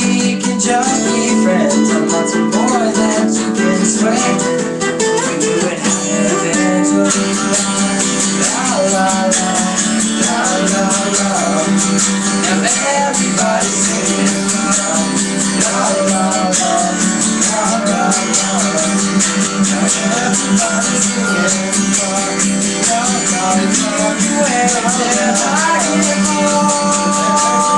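Guitar being played through a song, with a voice singing over it.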